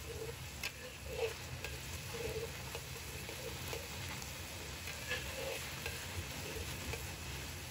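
Metal spatula stir-frying minced pork and chili sauce in a hot wok: a steady sizzle of oil under repeated scrapes of the spatula across the pan, about one a second.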